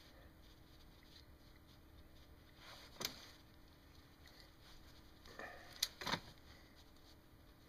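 Hand tools being handled while making wire terminals: a sharp click about three seconds in, then two sharp clicks close together near six seconds, over a faint steady hum.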